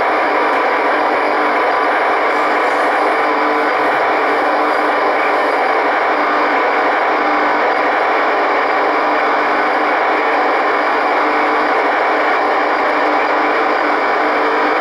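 Icom IC-R8500 receiver tuned in FM to an Orbcomm satellite's 137 MHz downlink: steady radio hiss with the satellite's weak digital hash buried in it, faint low tones coming and going under the noise. The signal is weakening as the satellite moves away.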